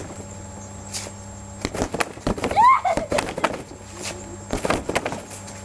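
Gloved punches landing on a free-standing Wavemaster punching bag in light combinations: a cluster of quick thuds about two seconds in, another single hit, and a second cluster near five seconds. A short high squeak, the loudest sound, comes about midway.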